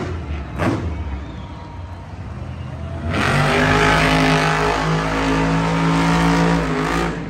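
Megalodon monster truck's supercharged V8 engine: two short blips of throttle, then about three seconds in it revs up and is held at high revs, easing off near the end.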